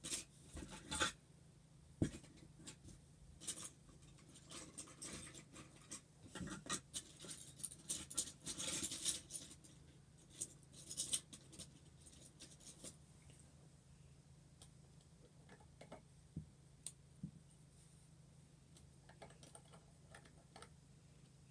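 Plastic Lego bricks being handled and fitted together: a busy run of small clicks, taps and scraping for the first dozen seconds, then only a few scattered clicks, over a faint steady hum.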